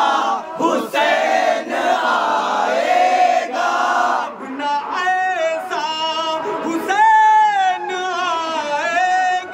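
A group of male voices chanting together, then from about halfway a single male voice singing a Muharram manqabat with long, wavering held notes.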